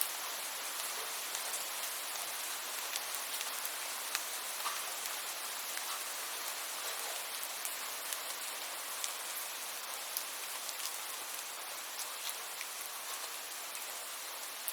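Steady rain: an even hiss with many separate drops ticking through it.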